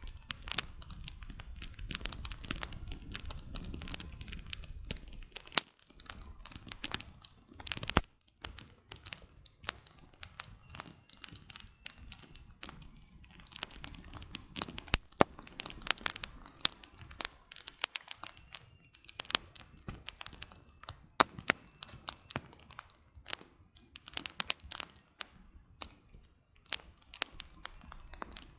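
Campfire of burning firewood crackling, with dense, irregular pops and snaps throughout. A low rumble sits under the crackle for the first few seconds.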